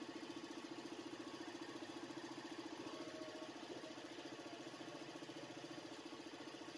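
A motor running steadily, giving an even hum with a fast regular pulse.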